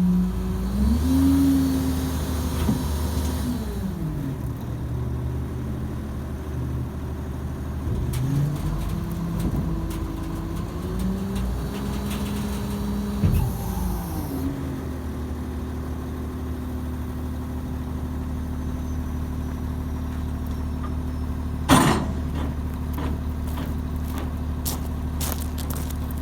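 A 2019 International dump truck's diesel engine revving up and down twice, then holding steady, as the hydraulics raise the dump body. One sharp bang about 22 seconds in.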